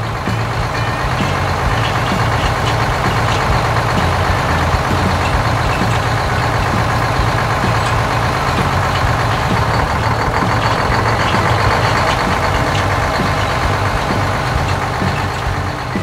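Combine harvester running: a steady low engine drone under a dense mechanical rattle.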